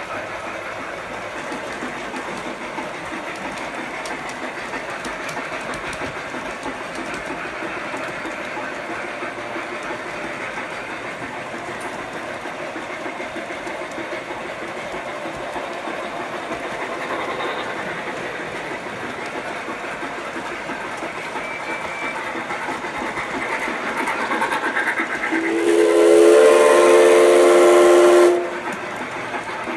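G scale model train rolling on its track, with a steady running rumble and faint clicking. Near the end, a model steam locomotive's sound system blows a long steam whistle of about three seconds that stops abruptly.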